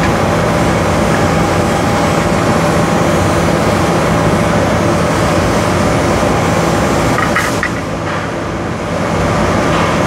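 AC TIG welding arc on aluminium, a steady loud buzz with a hum, easing off slightly for about a second around eight seconds in.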